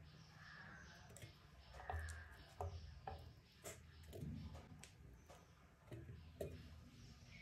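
Faint, scattered light clicks and soft taps as small pieces such as garlic cloves are dropped into a stainless steel mixer-grinder jar on top of tomato pieces.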